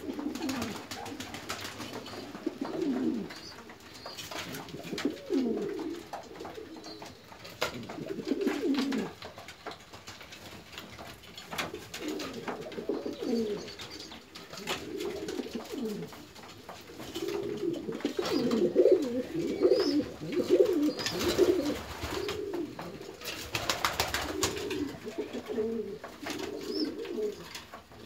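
Domestic pigeons cooing over and over, several birds overlapping, with now and then a flutter of wings and scuffling.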